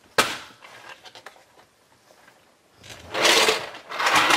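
Plastic Take-n-Play toy engine shed being folded shut by hand: a sharp plastic click right at the start, a few small clicks, then two longer rattling scrapes of plastic parts near the end.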